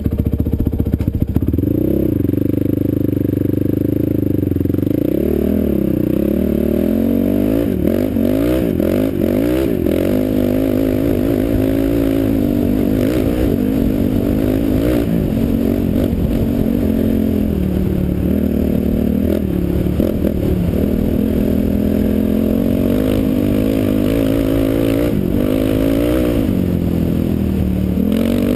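Honda TRX450R sport quad's single-cylinder four-stroke engine running under way, its pitch rising and falling over and over as the throttle is opened and eased.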